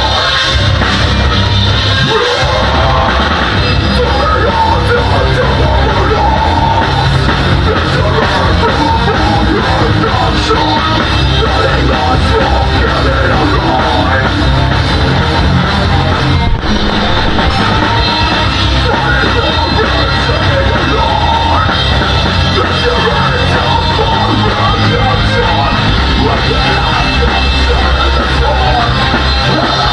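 Live metalcore band playing loud: heavily distorted guitars and drums with shouted vocals over them.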